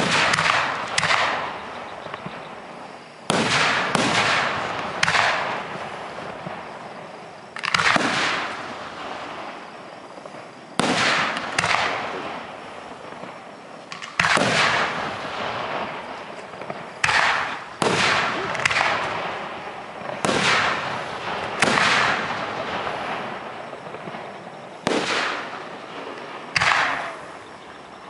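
Aerial firework shells bursting close overhead: a series of sharp, loud bangs, one every one to three seconds and some in quick pairs, each trailing off over a second or two.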